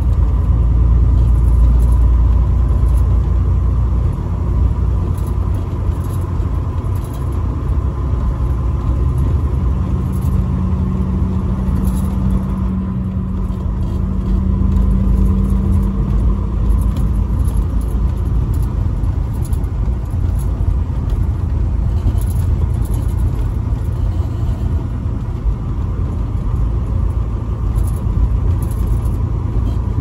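Truck engine and road noise heard from inside the cab while driving at town speed: a steady low rumble with a faint steady whine above it.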